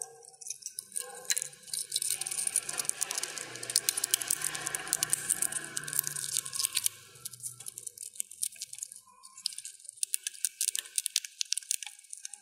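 Dwarf hamster cracking and husking sunflower seeds with its teeth: rapid, fine crackling and crunching of the shells, densest in the first half and sparser after about seven seconds.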